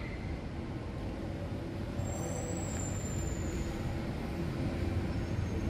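Steady low background rumble of a large hall with no distinct events, and a faint high whistle about two seconds in.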